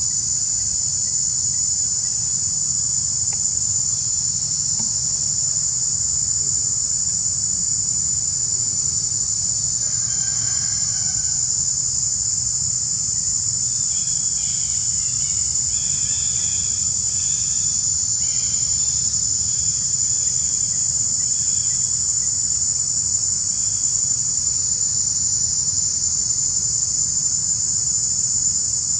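Loud, steady, high-pitched shrilling of an insect chorus, unbroken throughout. About halfway through, a faint run of short repeated calls sounds over it.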